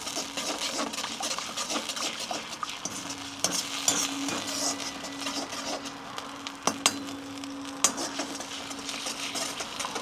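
Sauce of garlic, spring onion, ketchup and chilli sauce sizzling in a little oil in a kadhai while a spoon stirs it, clinking and scraping against the pan, with a couple of sharper clinks after the middle. A faint steady hum joins about three seconds in.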